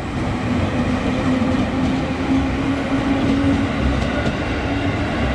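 Ex-JR 205 series electric commuter train passing close by: a loud, steady rumble of wheels on the rails with a low steady hum over it and a few faint rail clicks.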